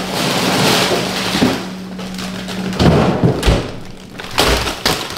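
Plastic bags of frozen green beans rustling and crinkling as they are handled, with a few dull thuds about three seconds in.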